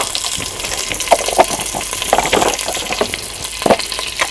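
Ground spices frying in hot mustard oil in a clay pot: a steady sizzle with a few louder crackles.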